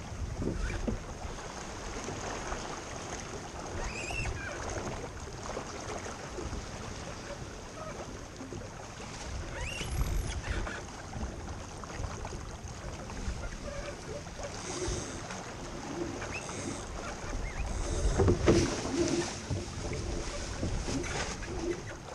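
Wind buffeting the microphone and water rushing along the hull of a small keelboat sailing under spinnaker, with a few short squeaks and a louder stretch near the end.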